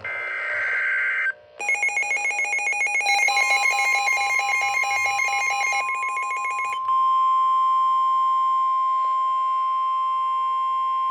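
Emergency Alert System tones: a second-long burst of buzzy digital header data, then about five seconds of rapidly pulsing electronic alert tones, then a single steady attention tone held to the end.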